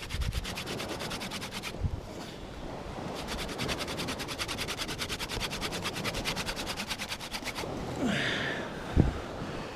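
Hand-drill fire-making: a wooden spindle twirled fast between the palms, grinding against a wooden hearth board in quick, even strokes. The drilling pauses briefly under two seconds in, starts again about three seconds in and stops near the end, followed by a single thump.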